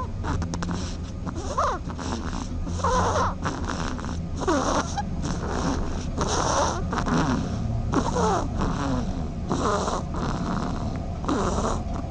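An animal snoring in an even rhythm, one breath about every one and a half seconds. Each breath carries a whistling note that slides up and down in pitch.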